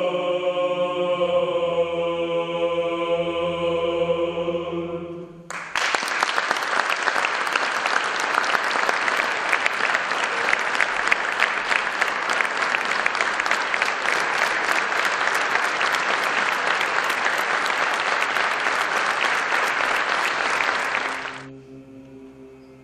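Male choir singing Byzantine chant, holding a sustained chord, cut off about five seconds in by audience applause. The applause runs about fifteen seconds and dies away near the end.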